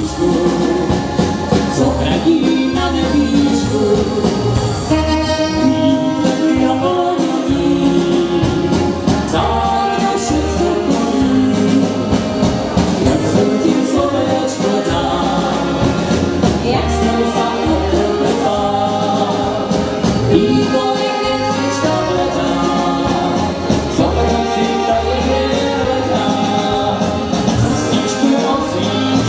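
Live band playing a Czech folk song: several voices singing together over accordion, drums and saxophone, with a steady beat.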